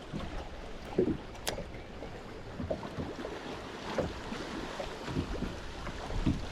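Wind buffeting the microphone on a small boat on open water, a low uneven rumble, with a few light knocks, the sharpest about a second and a half in.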